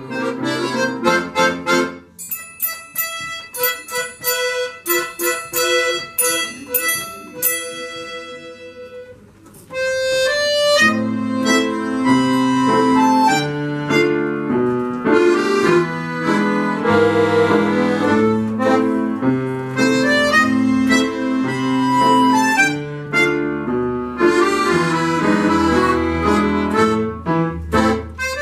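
A children's ensemble of button accordions and piano accordions playing a lively tune. From about two seconds in the music thins to a light passage of single ringing notes that fade out. The full accordion band comes back in strongly about ten seconds in, with sustained chords.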